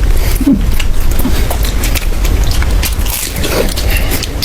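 Close-up sounds of someone chewing and biting into food, with many short crunchy clicks.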